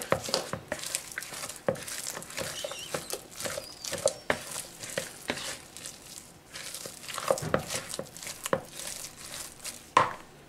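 Silicone spatula stirring and folding mashed potato with grated cheese in a plastic bowl: irregular soft strokes and light knocks against the bowl, with one sharper knock near the end.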